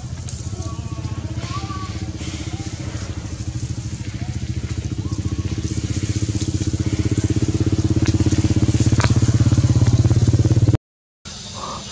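A small engine running with a fast, even pulse, growing steadily louder over about ten seconds, then cut off abruptly near the end.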